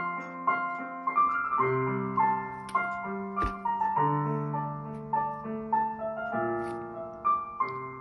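Solo piano music: a slow melody of single struck notes, about two a second, ringing over lower held notes.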